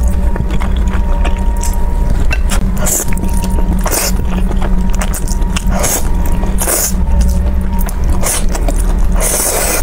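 Close-miked eating: chewing, then instant noodles being slurped in short sucking bursts from about three seconds in, the longest slurp near the end. A steady low hum runs underneath.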